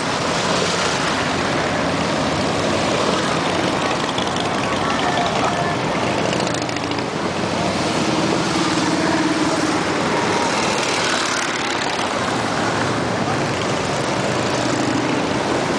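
A group of Harley-Davidson V-twin motorcycles running together in a parade, a steady, loud mass of engine and road noise.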